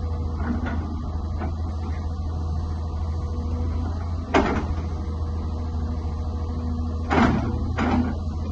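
New Holland E215B tracked excavator's diesel engine running steadily while the arm and bucket are worked, with a sharp clunk about four seconds in and two more near the end.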